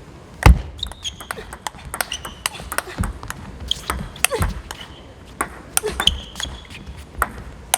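Table tennis rally: the plastic ball clicking sharply off rackets and table many times in quick, uneven succession, the hardest hit about half a second in. Short high squeaks of shoes on the court floor come in between the hits.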